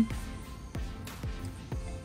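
Background music, soft and steady, with a few low thumps of its beat.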